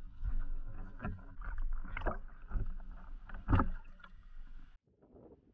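Water splashing and sloshing around a landing net held in lake water, in irregular splashes with the loudest about two and three and a half seconds in; the splashing stops suddenly near the end.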